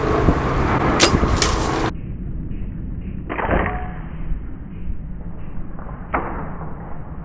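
Bow shot in a deer stand: a sharp thump with a short ring-out about three seconds in and another sharp thump about six seconds in, over a steady low background. The first two seconds hold a brighter sound with two sharp clicks that cuts off abruptly.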